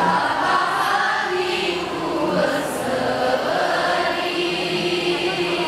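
A choir of women and men singing together in harmony, holding long sustained notes.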